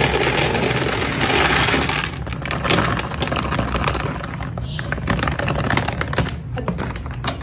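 Dry cat kibble pouring from a bag into a plastic storage bin. It comes as a dense rush of pellets for about the first two seconds, then thins to a patter of single pieces clicking as they fall.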